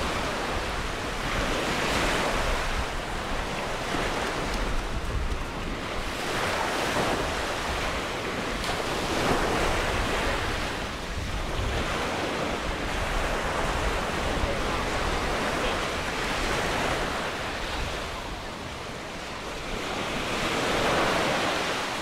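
Mediterranean surf washing onto a sandy beach, swelling and easing every few seconds as waves break, with wind rumbling on the microphone.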